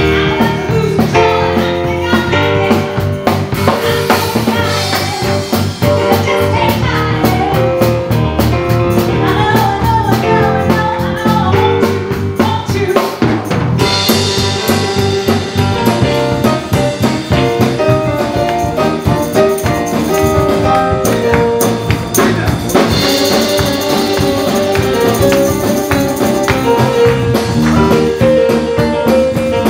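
A rock band playing live: drum kit, bass guitar and keyboards, with a woman singing. The cymbals grow brighter about halfway through and again later.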